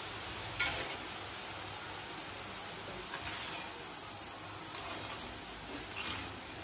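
Boondi deep-frying in hot oil in a kadai: a steady sizzle, with a few light knocks of a wire skimmer against the pan as the fried boondi are lifted out.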